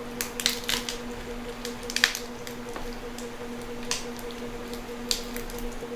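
Crispy fried pork knuckle skin crunching and crackling as it is bitten, chewed or pulled apart: a quick cluster of crunches in the first second, then single sharp crunches about two, four and five seconds in.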